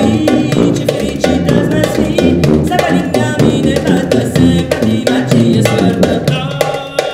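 Band music with a steady drum and percussion beat; a higher melody line comes in near the end.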